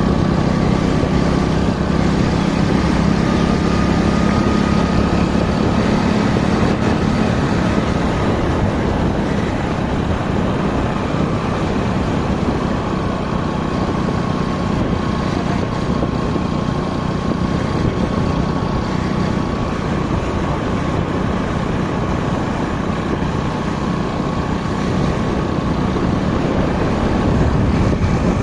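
Motorcycle engine running steadily while riding, with wind rushing over the microphone and road noise. The engine hum is a little stronger for the first several seconds, then eases.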